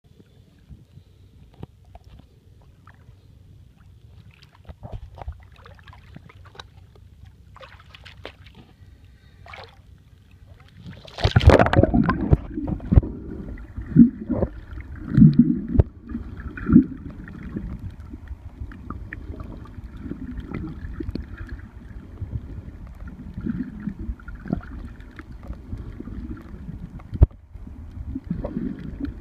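Water sloshing and gurgling around a small boat, faint at first. From about eleven seconds in a loud low rumble comes in, with irregular knocks and splashes.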